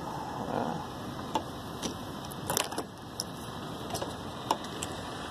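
A handful of light, sharp clicks and taps as a windshield wiper blade is worked onto its arm, spread over a few seconds above a steady background hiss.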